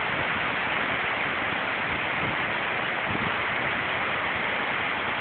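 Whitewater of a rocky stream rushing over boulders, a steady, unbroken rushing of water.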